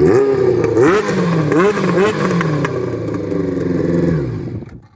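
Honda CBX 750's air-cooled inline-four engine, breathing through an aftermarket 4-into-1 exhaust, revved in about four quick throttle blips, then settling to a steady note that dies away near the end.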